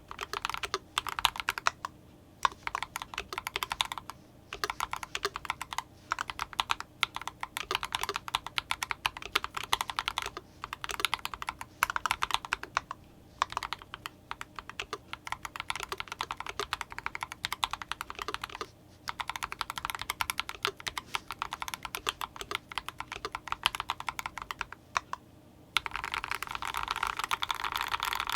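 Typing on an IDOBAO ID87 V2 mechanical keyboard with fully lubricated Akko POM Silver linear switches: runs of rapid keystrokes broken by short pauses, with a denser, faster run near the end.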